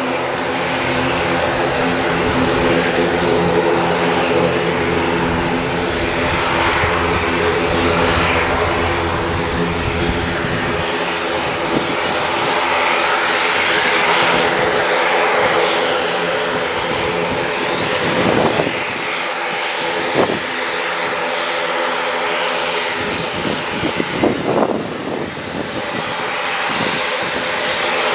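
An ATR 42-600's twin turboprop engines running at taxi power: a steady drone of propeller tones over a broad rushing engine noise. A few short thumps come about two-thirds of the way through.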